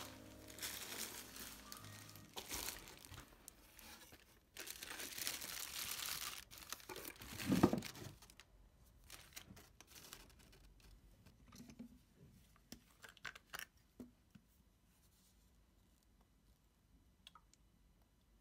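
Plastic bag crinkling and rustling as it is handled, with one heavier thud about three-quarters of the way through that stretch. After that, only light scattered clicks and taps of small objects.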